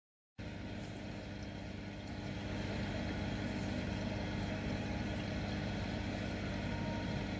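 Steady mechanical hum from a small motor, with a rushing hiss over it; it grows a little louder about two seconds in and cuts off abruptly at the end.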